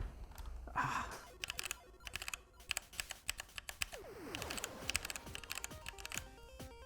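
Typing on a Keychron K2 mechanical keyboard: a rapid, uneven run of key clicks and clacks.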